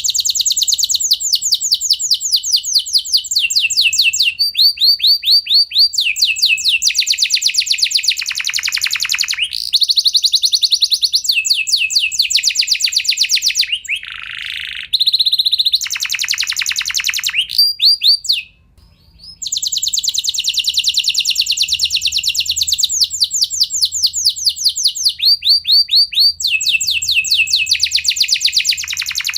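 Domestic canary singing a long, nearly unbroken song of rapid trilled rolls: each phrase is a fast run of one repeated note, switching to a new phrase every second or two. There is a short break about two-thirds of the way through.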